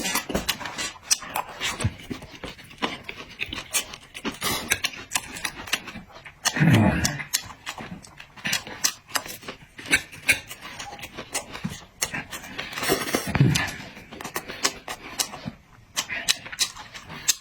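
Close-miked eating: wet chewing, lip smacks and mouth clicks throughout. Two louder, longer mouth sounds come about 7 and 13 seconds in.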